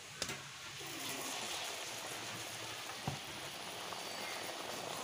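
Batter-coated potato bondas deep-frying in hot oil, a steady sizzle and bubbling that builds up over the first second. A short knock about three seconds in.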